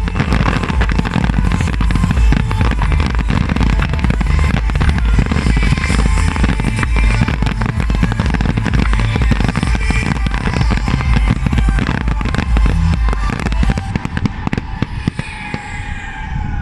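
A dense barrage of fireworks going off in rapid, overlapping bangs and crackles, with the display's soundtrack music playing underneath. The barrage thins out about fourteen seconds in.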